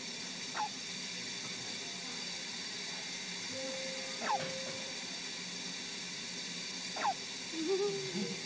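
Premature baby on CPAP hiccuping: three short squeaky hiccups, each a quick falling squeak, about every three seconds, over the steady hiss of the CPAP airflow.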